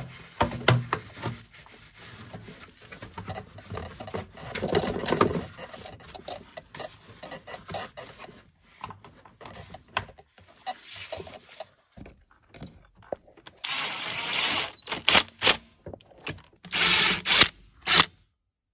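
Plastic air-intake duct and its rubber boot being handled and worked into place over the engine, with scattered clicks and rubbing. In the last few seconds a cordless driver runs in several short bursts, tightening the duct's hose clamp.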